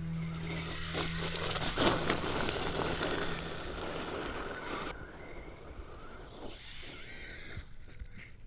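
Axial RBX10 RYFT RC rock bouncer running over gravel and dirt: tyre and gravel noise with a few knocks, the loudest about two seconds in, then quieter after about five seconds.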